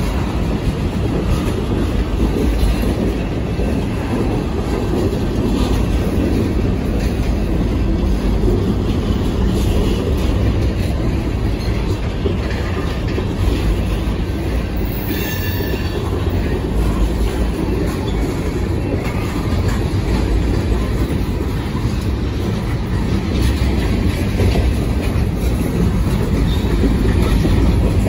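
Freight train tank cars and covered hoppers rolling past: a steady heavy rumble of steel wheels on the rails, with a brief higher wheel squeal about halfway through.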